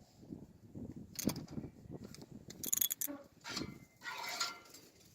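Scattered metal clicks and clinks from tools and the steel spring tooth and clip of a hay rake being adjusted by hand. Near the end a short animal call is heard in the background.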